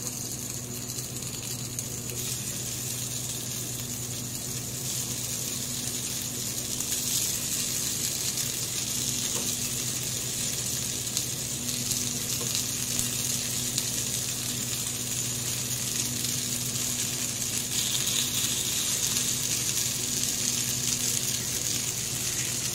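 Sabudana-aloo tikkis sizzling gently in a little oil on a tawa over low heat: a steady soft hiss that grows slightly louder after several seconds, with a faint steady hum beneath.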